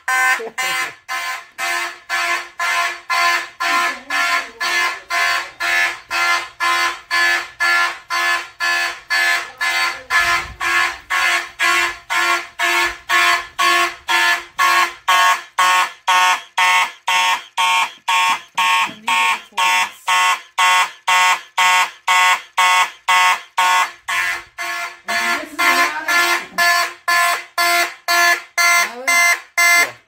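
Several fire alarm horns, among them a Federal Signal 450D horn and Simplex horn-strobes, sounding together in march-time code. It is a loud, buzzy tone pulsing on and off about twice a second.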